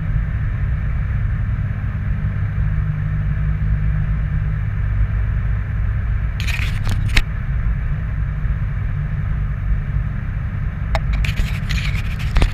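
2018 Ram 3500's 6.7 L Cummins inline-six turbo-diesel running steadily with a newly installed dual-disc clutch. Brief scraping, rattling noises come midway and again near the end.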